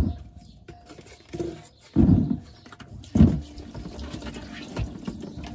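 Cherry tomatoes tipped into a plastic collapsible sieve in a stainless steel sink: a few thuds and rattles, the loudest about two and three seconds in. About three seconds in, a steady low hum sets in and keeps going.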